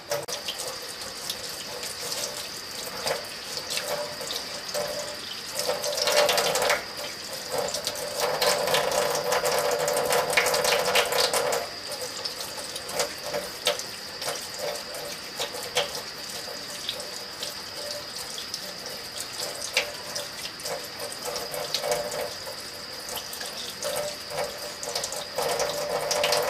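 Cold water running from a kitchen tap into a sink as freshly dug ramps are rinsed under the stream, with small splashes and clicks as the leeks and hands move through the water. The rush grows louder twice, about six seconds in and again from about eight to twelve seconds.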